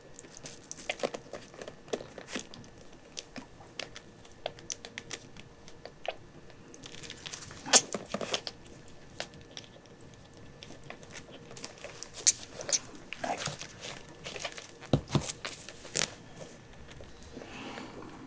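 Irregular soft clicks, crinkles and rustles of handling: a rubber-gloved hand holding a newborn kitten to a nursing bottle on a crinkly pad, with a few sharper knocks, the loudest about eight seconds in.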